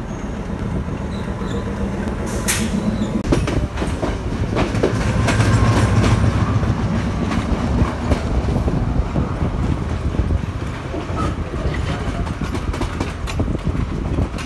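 Sri Lanka Railways diesel train heard while riding in it: a steady low rumble, with the wheels clacking irregularly over rail joints and points as it runs through the yard. The rumble grows louder around the middle.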